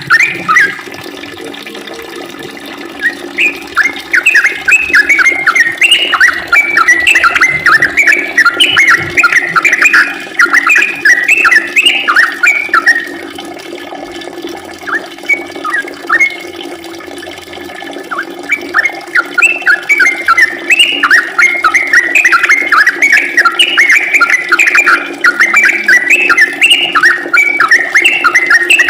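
Yellow-vented bulbul (trucukan) singing long, rapid runs of chirping notes, with a lull of a few seconds midway before it starts up again. A steady low hum runs underneath.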